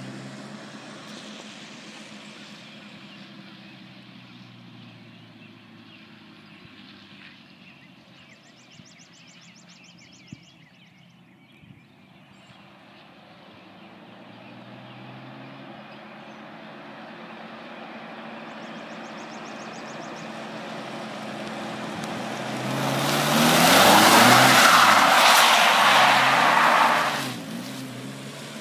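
Pickup truck engine running as the truck circles, faint in the middle and growing louder as it comes closer. Near the end the engine revs, and a loud hiss of tyres sliding on asphalt as the truck drifts lasts about five seconds, then cuts off.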